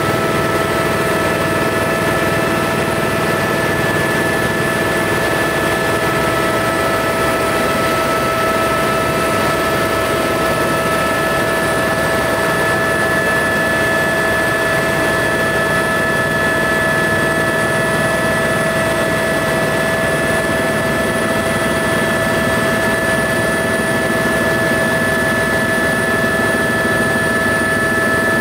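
Helicopter in flight, heard from inside the cabin: a constant rushing noise with a steady whine held at one pitch throughout.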